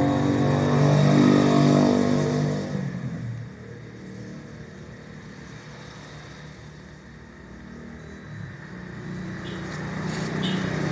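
Homemade HHO electrolysis rig powered by a DC inverter welder, with the gas bubbling through a water-filled bottle. A loud rumbling hum drops away about three seconds in and builds again near the end as the bubbling in the bottle picks up, with a few light ticks.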